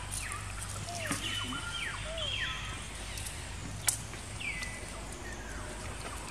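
Several short, high, whistly animal calls that glide down in pitch, one after another, with a single sharp click about four seconds in.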